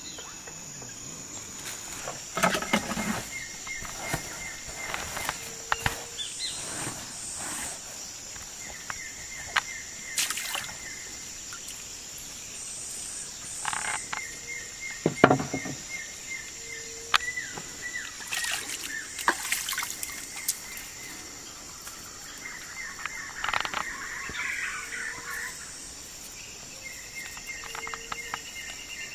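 Outdoor forest ambience: a steady high insect drone, with a rapid ticking trill that comes back every few seconds and scattered clicks and knocks.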